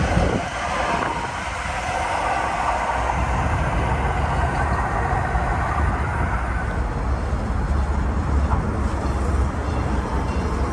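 A train at close range: a loud rushing noise drops away just after the start, then a steady low rumble carries on.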